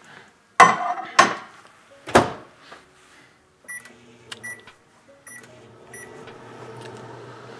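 Over-the-range microwave oven being loaded and started: three sharp clacks as the plate goes in and the door is shut, then a string of short keypad beeps. About five seconds in, the oven starts with a steady low hum.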